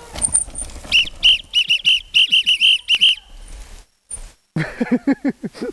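A whistle blown in a quick series of about ten short, sharp, high blasts, the loudest sound here. Near the end a voice calls out in short bursts.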